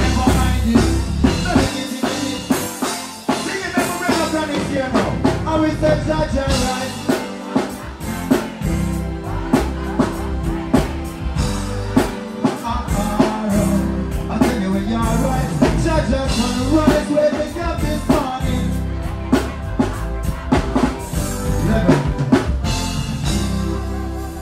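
Live reggae band playing, with drums and bass out front and a male vocalist singing over it through the stage PA.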